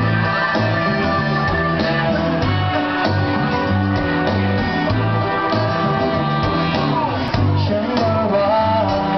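Live pop-soul song: a male vocal group sings into microphones over backing music with a repeating bass line.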